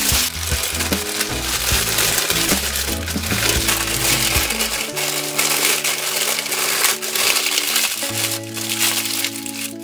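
Baking paper crinkling and rustling as it is rolled up tightly and its ends twisted, over background music with held notes.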